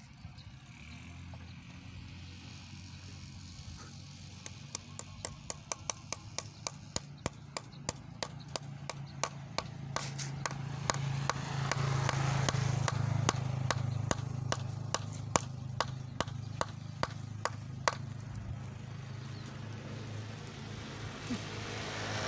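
Claw hammer tapping a metal bolt into a grey slab: a long run of sharp metallic taps, about two a second, starting a few seconds in and stopping near the end. A steady low hum runs beneath, louder in the middle.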